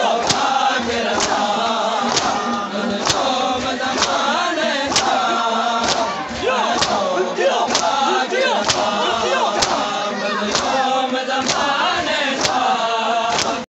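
A group of men chanting a mourning lament together while beating their chests in unison during matam. The sharp slaps of the chest strikes land in an even rhythm of about one a second.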